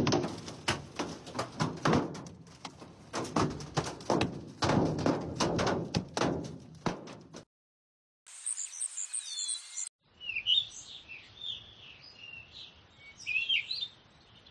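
Hailstones striking a car in a fast, irregular run of sharp knocks for about seven seconds. Then, after a brief silence, small birds chirping.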